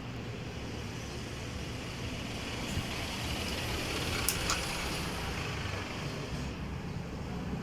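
Old Giant Mabuhay star ceiling fan running with a steady hum, under a rush of road traffic noise that swells through the middle. A couple of faint clicks come about halfway through.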